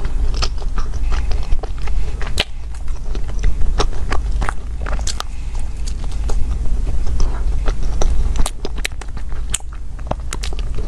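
Close-miked chewing of a soft chocolate bun with a creamy filling: wet mouth clicks and smacks come in an irregular run, over a steady low hum.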